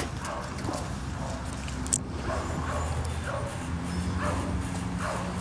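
A dog giving a series of short calls, about seven in five seconds, over a steady low hum.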